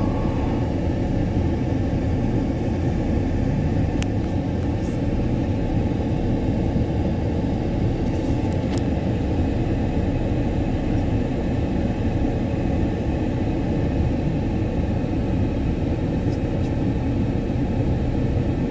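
Steady low rumble of car interior noise heard inside the cabin: engine, tyre and air noise with no sudden events.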